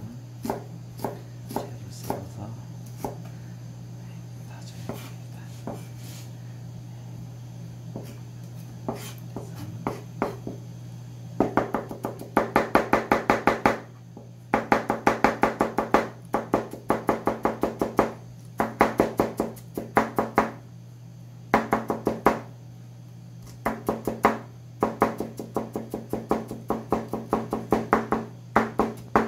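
Chef's knife chopping carrot on a plastic cutting board: slow single slicing strokes for the first ten seconds or so, then quick runs of rapid chopping strokes in bursts of about two seconds with short pauses, as the carrot is minced fine. A steady low hum runs underneath.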